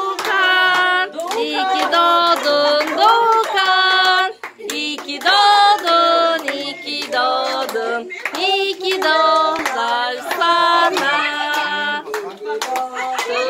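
People singing a birthday song together, with hand clapping in time throughout.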